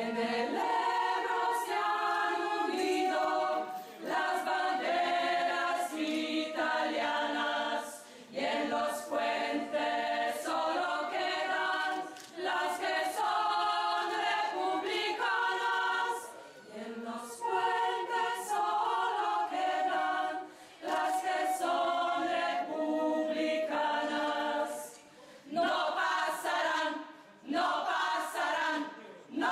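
Women's choir singing together, in phrases a few seconds long with short breaks between.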